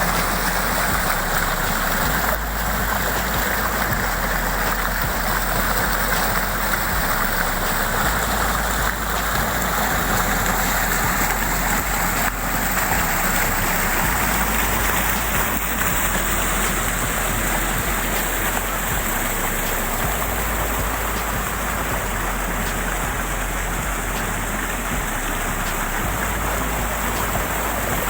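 Steady rush of falling and flowing water from a waterfall and its stream.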